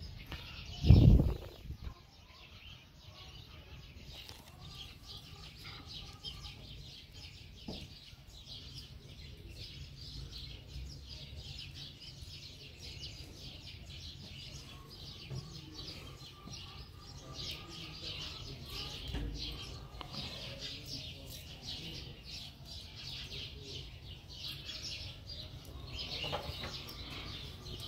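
Small birds chirping steadily in the background, many short high chirps, with a single loud low thump about a second in.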